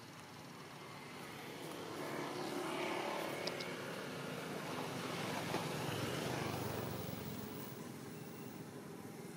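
Engine noise of a passing vehicle that swells over the first few seconds, holds, then fades away near the end.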